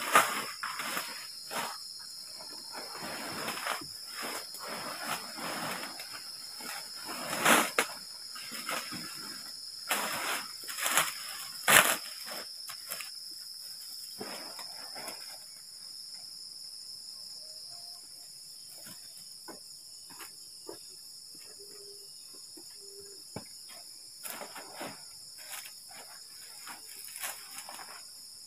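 Crickets chirring steadily at night. Over the first half this is mixed with rustling and handling of tent nylon and gear as someone works at and climbs into a dome tent, with a few sharp knocks, the loudest near the middle. The rustling dies down to occasional small ticks.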